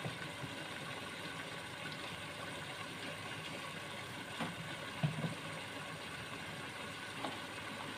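Quiet, steady hiss and hum of a pot of chicken, potatoes and tomatoes cooking on the stove, with a few faint knocks around the middle.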